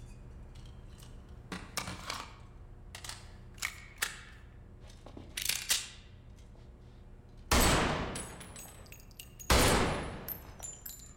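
Two pistol shots about two seconds apart in the second half, each trailing off in the echo of the indoor range. Before them come a few soft clicks of the handgun being handled.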